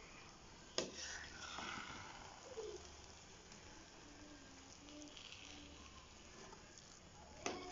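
Metal spatula stirring and scraping a thick, sticky purple rice mixture in a pan, with a sharp knock of metal on the pan about a second in and again near the end.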